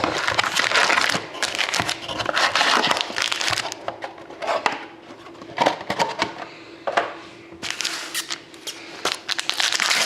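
Plastic wrapping on trading card boxes and packs being torn open and crinkled, in irregular bursts of crackling with short quieter pauses.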